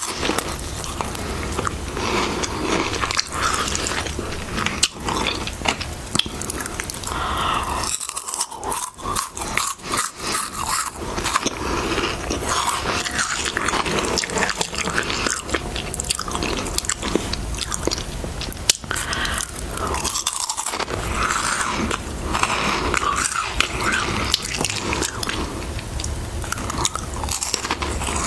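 Close-miked chewing and crunching of Harvest Snaps baked snack crisps: dense crisp crackles that go on almost without pause.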